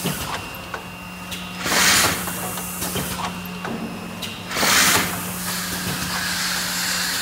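HM HSP-6 K-cup capsule filling and sealing machine running: a steady hum with light mechanical clicks, broken twice by a loud half-second hiss of released air that comes about every three seconds with the machine's cycle.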